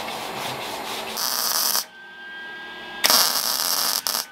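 Electric arc welding on steel exhaust tubing: the arc's hiss and crackle, loudest in two bursts, a short one a little over a second in and a longer one at about three seconds.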